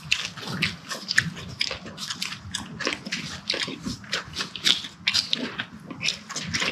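Close-up chewing and biting: wet, crunchy mouth sounds of eating, made up of irregular clicks and crunches several times a second.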